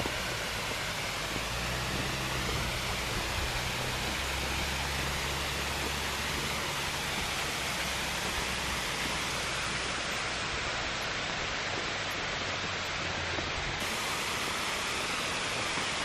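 Steady rushing hiss of water falling over a rock cascade, with a low steady hum beneath it that fades out about two-thirds of the way through.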